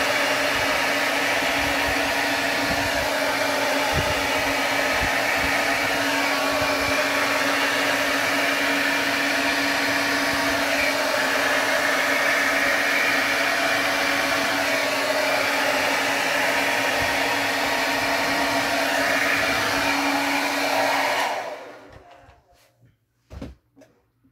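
Handheld hair dryer blowing steadily, a constant airy rush with a steady hum under it, switched off near the end; a few faint clicks follow.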